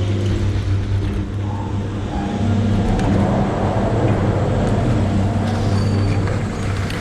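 A steady, low mechanical hum with a noisy hiss over it, getting a little louder about two and a half seconds in.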